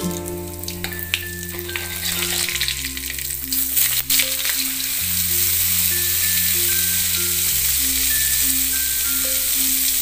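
Margarine sizzling as it melts in hot oil in a wok, the sizzle growing steadier and louder from about halfway. A few sharp clicks of the spoon against the wok come about a second in and again about four seconds in. Slow background music with a steady bass line plays under it.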